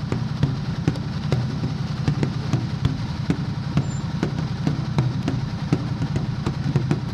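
Motorcycle engine running at low speed as the bike rolls slowly along, a steady low rumble with scattered light ticks.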